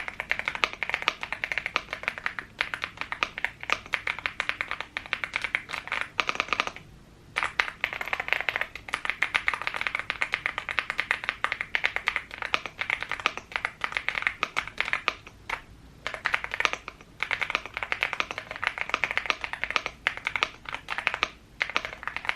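Typing on a Womier SK71 mechanical keyboard with its stock switches and keycaps: a fast, continuous run of keystrokes with a few brief pauses.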